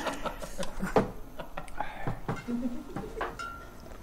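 A few scattered clinks and knocks of drinking glasses, bottles and cans, the sharpest about a second in, with brief murmured voices.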